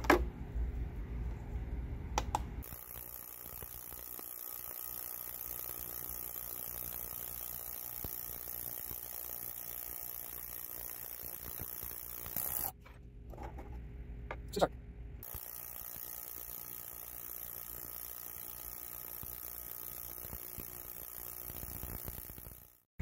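VPCOOK ultrasonic cleaner running with a metal tripod part in its tank of water: a steady high hiss. There are two clicks about two seconds apart at the start as the part goes in. The hiss breaks off briefly about halfway through, with a single click, then carries on.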